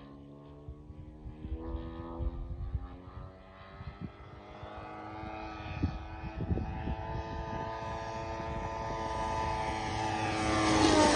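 Large petrol-engined RC model airplane (Fliegerland Sportsman with a 3W-157 two-stroke engine) flying past with a steady propeller drone. It grows louder as it approaches, is loudest near the end, and its pitch starts to drop as it passes.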